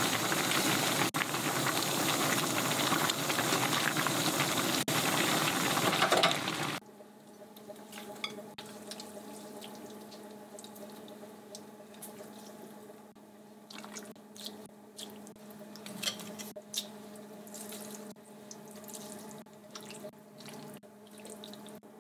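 Spicy fish-cake and noodle soup boiling hard in a stainless pan on a gas hob, a loud even bubbling that cuts off suddenly about seven seconds in. After that comes a low steady hum with scattered light clinks as the noodles and skewered fish cake are served into bowls.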